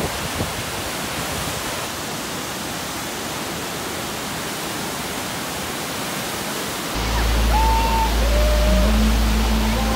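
Steady roar of a large waterfall, Kjosfossen on the Flåm Railway. About seven seconds in, music with a deep low drone and a gliding, held melody starts up over it.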